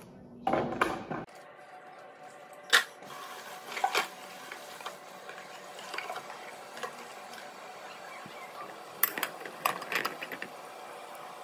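Kitchen tap running water into a plastic container as it is rinsed at the sink, a steady hiss broken by sharp knocks and clatter of the plastic being handled. There is a flurry of louder knocks near the end as the container is put down.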